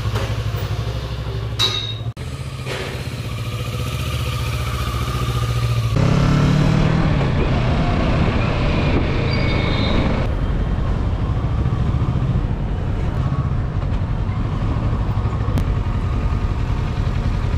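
Kawasaki Versys 650's parallel-twin engine running steadily at idle, with a sharp click about two seconds in. About six seconds in the sound changes abruptly to a louder, rougher engine with a rush of wind and road noise, as when riding.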